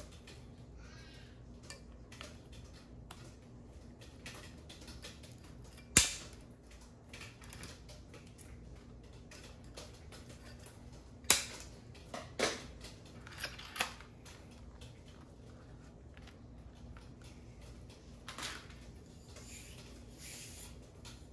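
Sharp clicks and snaps from handling a bike handlebar and its plastic mudguard, the loudest about six seconds in and a quick run of them around eleven to fourteen seconds in, with faint rustling between.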